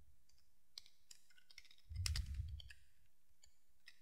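Computer keyboard typing: irregular key clicks, with a low muffled rumble lasting under a second about halfway through.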